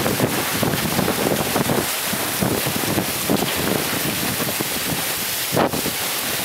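Wind buffeting the microphone over the rush and splash of water against a sailing trimaran's hulls in a choppy sea, with one brief louder knock about five and a half seconds in.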